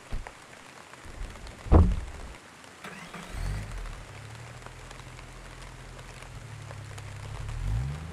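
A car door slams shut about two seconds in, then a Maruti Suzuki Wagon R hatchback's engine starts and runs steadily, its pitch rising near the end as the car pulls away. Background music plays along.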